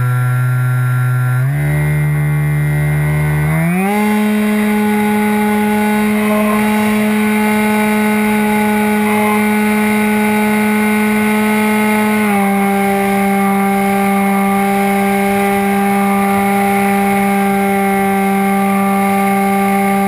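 Motor and propeller of a radio-controlled model plane, heard close from the onboard camera, giving a loud steady whine. Its pitch shifts about a second and a half in, climbs sharply near four seconds as the throttle is opened, holds, then drops slightly about twelve seconds in.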